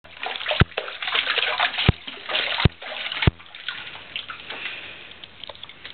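Bathwater splashing and sloshing around a baby in a small baby bathtub, with four dull thumps in the first three seconds; after about three seconds it settles to soft trickling and dripping.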